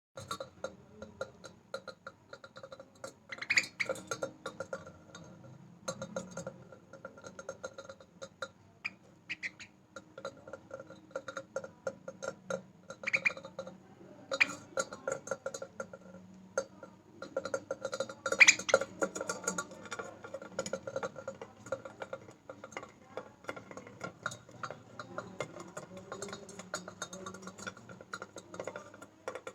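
A metal utensil being tapped and clinked rapidly and irregularly, its ring holding at the same couple of pitches, with a few louder, brighter clinks now and then.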